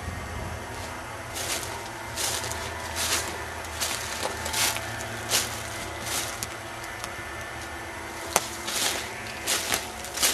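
Footsteps crunching on dry ground or leaves at a walking pace, starting a couple of seconds in, over a steady low hum, with one sharp click near the end.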